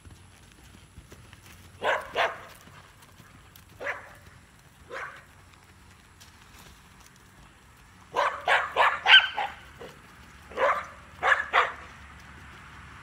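A dog barking in short bouts, about a dozen barks in all, with the quickest and loudest run of five barks about two-thirds of the way through.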